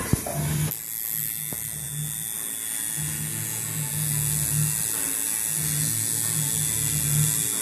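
Electric tattoo machine buzzing as the needle works along the stencil line, swelling and fading in stretches. A sharp click just at the start.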